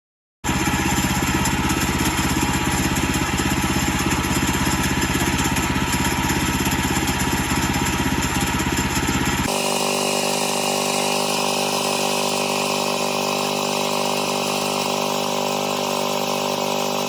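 Engine running steadily, starting about half a second in; about nine and a half seconds in, a sudden cut switches to a different steady engine sound with less low rumble.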